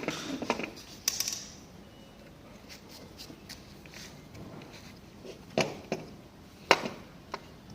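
A few sharp metal clicks and knocks, with fainter ticks between, from prying the electric assist motor off a BMW steering rack with a large flat screwdriver and lifting it out; the loudest knock comes near the end.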